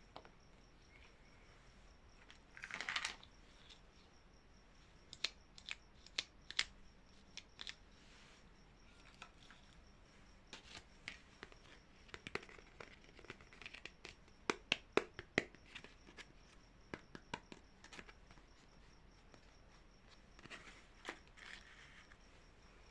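Packaging being opened and handled: a short tear about three seconds in, then scattered sharp clicks and crinkles, busiest a little past the middle.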